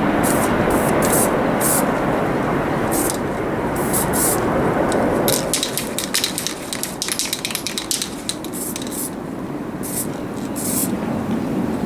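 Aerosol primer spray can being fired in short hissing bursts, with a fast run of quick squirts in the middle. Wind buffets the microphone, more strongly in the first half.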